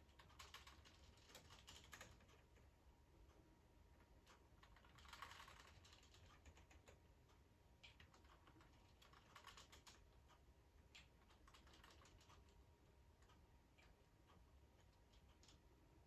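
Faint, irregular clicking and clattering of the plastic K'nex parts and gears of a model Loop-O-Plane ride as it turns, with a short noisier rattle about five seconds in.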